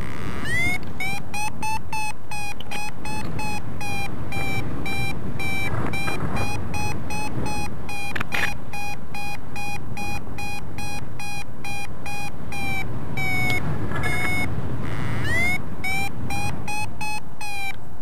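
Paraglider variometer beeping its climb tone: a rapid train of short high beeps that rises in pitch as it starts, drops and pauses briefly about two-thirds of the way through, then rises and speeds up again. The beeping signals the glider climbing in lift. Wind rushes on the microphone underneath.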